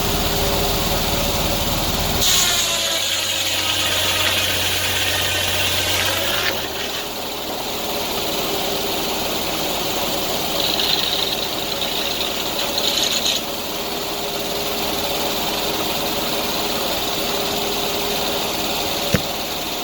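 Sawmill engine running steadily. About two seconds in a rushing hiss comes in for some four seconds, later a high whine sounds for about three seconds, and a single sharp click comes near the end.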